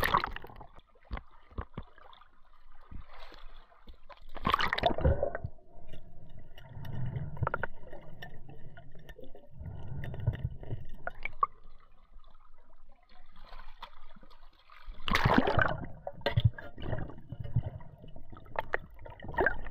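Water sloshing and gurgling around a camera at and under the sea surface, with louder splashy surges right at the start, about four and a half seconds in, and around fifteen seconds in, plus scattered small clicks.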